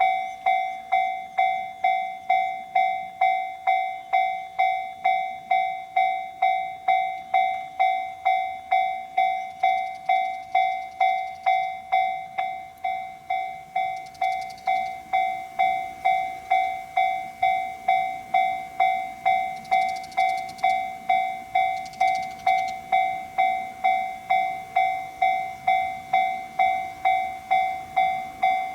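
Japanese railway level-crossing warning bell ringing in a steady rhythm of about two strikes a second, signalling that a train is approaching and the crossing is closed.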